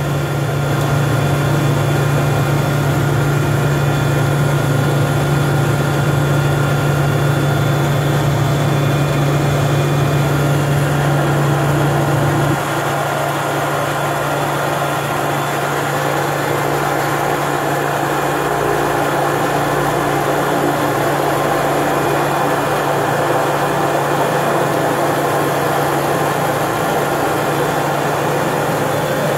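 GE H80 turboprop engine of a DeHavilland Turbine Otter running steadily at low power, heard from inside the cockpit. It has a strong low hum that steps down about twelve seconds in, leaving a steadier, lighter engine noise.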